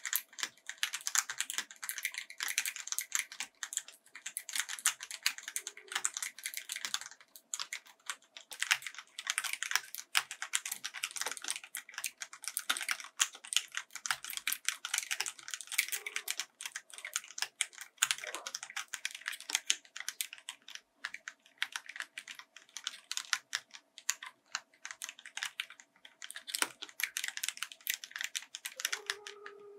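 Fast continuous typing on a Yunzii X75 mechanical keyboard with a transparent case and translucent pudding-style keycaps: a dense stream of keystroke clicks with a few brief pauses.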